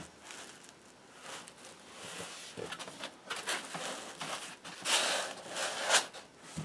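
Foam packing end caps being pulled off a cardboard box: foam scraping and rubbing against the cardboard, with a louder stretch of rubbing about five seconds in and a sharp knock about a second later.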